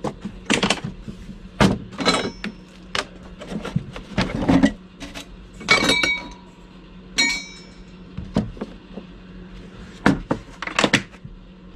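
Irregular knocks and clatter of hard objects being handled, with two short metallic clinks that ring briefly about six and seven seconds in, over a faint steady low hum.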